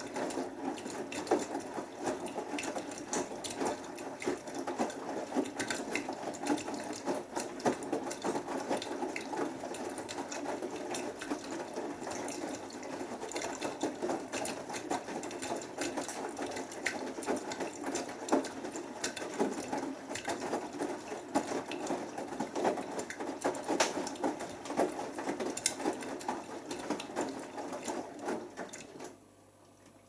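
Beko WMB81445L front-loading washing machine in its main wash, the drum turning and tumbling a load of wet laundry: a steady patter of clothes lifting and dropping through the water. It stops abruptly about a second before the end as the drum pauses.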